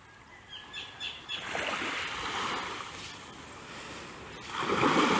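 Small waves washing onto a sandy shore. The wash swells about a second and a half in, eases, and comes up louder near the end. A few short bird chirps sound in the first second or so.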